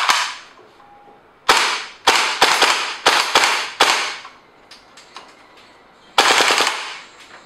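GHK-based AK74M gas blowback airsoft rifle firing, each shot a sharp crack with the clack of the bolt cycling. A clack at the very start, about seven single shots between roughly one and a half and four seconds in, then a fast burst of several shots about six seconds in.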